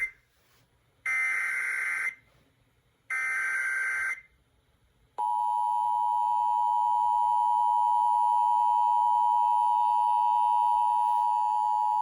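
Emergency Alert System header data: two one-second bursts of buzzing, warbling SAME data tones, a second apart. About five seconds in, the steady two-tone EAS attention signal starts and holds, announcing the severe thunderstorm warning that follows.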